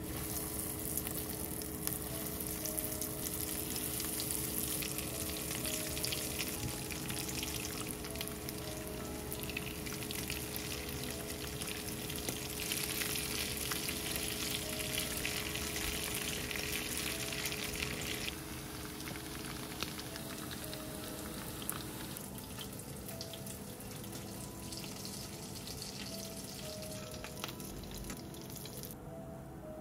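Panko-breaded croquettes sizzling as they shallow-fry in oil in a frying pan. The sizzle swells in the middle and cuts off just before the end.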